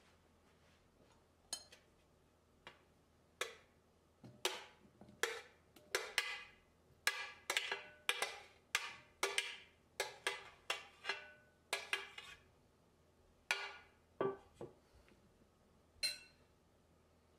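A metal spoon pushing cut cherry tomatoes and avocado off a ceramic tray into a glass bowl: a run of light clinks and taps of spoon and tray against the glass and of the pieces landing, about two a second at their busiest, with a single ringing clink of the spoon on the bowl near the end.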